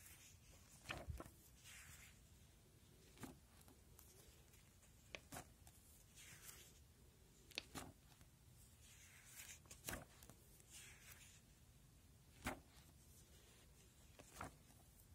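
Faint rustling of plastic sheet-protector pages being turned in a ring album, with soft clicks and taps every second or two.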